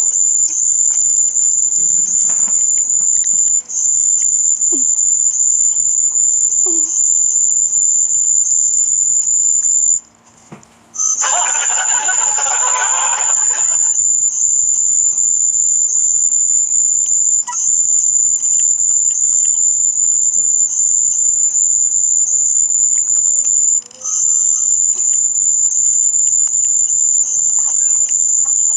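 A shrill, steady, very high-pitched sound-effect tone, cricket-like, that holds almost without a break, dropping out briefly a few times. About ten seconds in it cuts to near silence for a second, then a loud, harsh burst of noise lasts about three seconds before the tone resumes.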